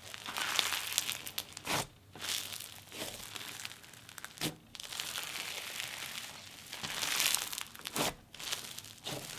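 Pink snow fizz slime, packed with plastic snow pieces, being squeezed and stretched by hand: crunching and sizzling crackles in several bouts with short pauses between.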